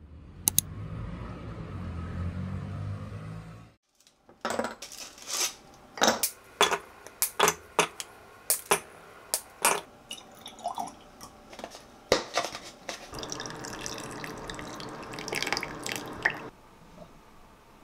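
A low steady rumble for about four seconds, then chocolate pieces snapped by hand and dropped into a small glass measuring jug, a string of sharp clinks. Near the end, milk is poured into the jug in a steady stream for about three seconds.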